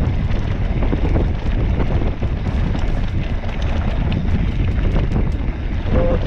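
Wind buffeting the microphone over the rumble and rattle of mountain-bike tyres rolling fast down a rough gravel dirt track, with many small clicks from loose stones.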